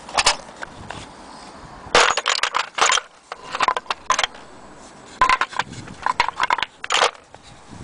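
Old hand tools and wooden-cased sharpening stones being handled in a metal tool tray, with clattering knocks and scrapes of wood and metal. These come in short clusters, the busiest a couple of seconds in and again from about five to seven seconds in.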